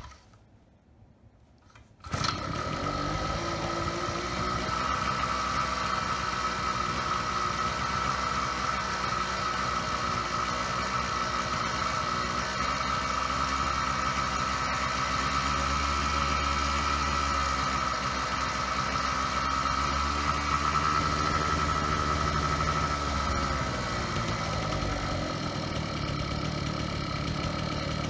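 Xcooter Thunder scooter's small gas engine starts about two seconds in and runs fast and steady, racing on a lean fuel mixture while its carburetor's pilot screw is turned out to let more fuel in.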